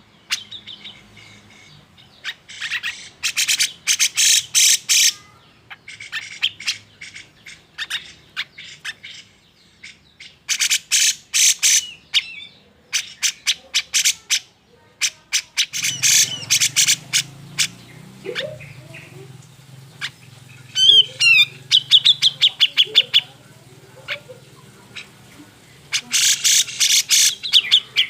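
Cucak jenggot (grey-cheeked bulbul) giving its agitated, harsh chattering call: runs of rapid rasping notes in bursts of a second or two, with a short twisting whistle about two-thirds of the way through.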